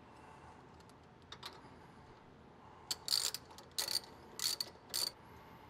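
Ratchet wrench clicking in several short strokes, about two-thirds of a second apart, starting about three seconds in: tightening the nut that holds the pre-filter's retainer plate down over the filter element.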